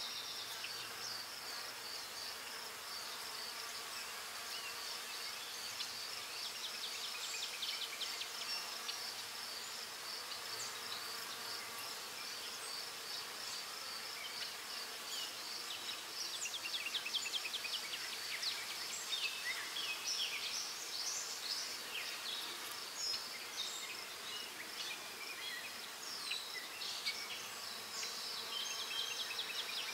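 Graphite pencil scratching across paper in quick short shading strokes, in bursts, over a steady high-pitched pulsing trill that carries on in the background.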